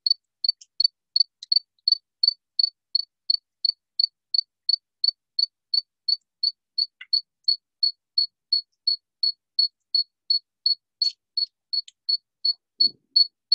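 A cricket chirping steadily and close by, short high chirps repeating at about four a second without a break.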